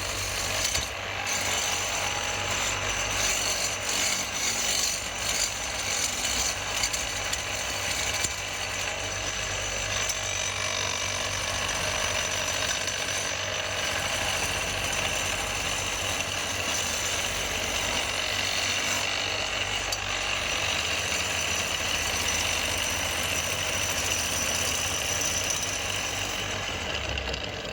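A motor-driven power tool running continuously while shaping the wood of a kassi (hoe) handle, with a steady high whine and a rough cutting noise.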